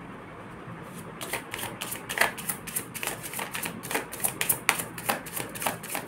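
Tarot cards shuffled by hand: a quick, irregular run of crisp card flicks, starting about a second in.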